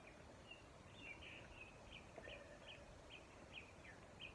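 Faint bird calling: a short high chirp repeated about two or three times a second, over quiet woodland background.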